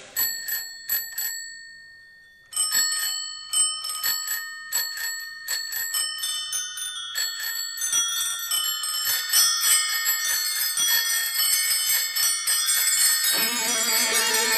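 The bicycle-bell interlude of a rock song: recorded bicycle bells ringing, a few separate rings at first, a short pause, then more and more until they overlap in a dense jangle. Near the end the fuller band sound comes back in.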